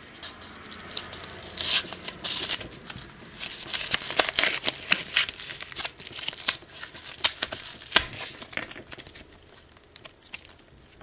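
Paper mailing envelope being ripped open by hand, with crinkling and rustling of the packaging.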